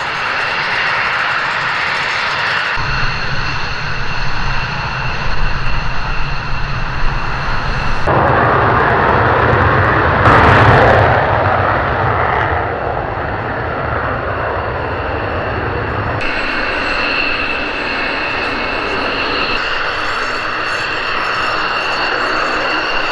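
Fighter jet turbofan engines at taxi power, first a Eurofighter Typhoon, then F-16s: a steady high whine over a rushing jet noise. It swells loudest about ten seconds in and changes abruptly several times as one aircraft gives way to the next.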